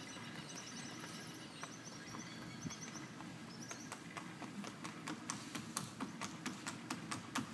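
Horse's hooves clip-clopping in a quick, even rhythm. The footfalls turn sharp and distinct about halfway through, as the horse steps onto a concrete bridge deck.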